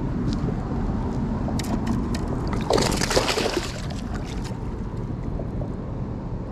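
Wind rumbling on the microphone while a hooked bass is fought, with a short burst of splashing about three seconds in as the fish thrashes at the surface, and a few faint light ticks.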